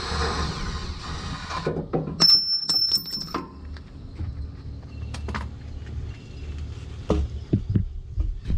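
Mechanic's tool and metal-part sounds while the rear shock's mounting bolts are taken out: a short rushing whirr at the start, a high metallic squeal with sharp clicks about two seconds in, then scattered clunks and knocks.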